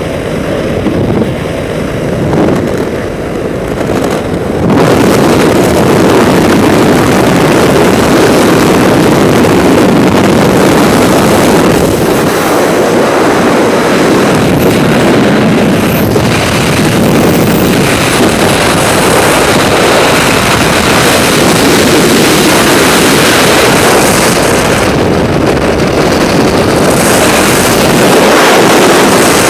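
Wind rushing over a helmet camera's microphone in skydiving freefall: a loud, steady rush that starts suddenly about five seconds in, at the exit from the aircraft. Before that there is a duller, lower rush of aircraft engine and wind at the open door.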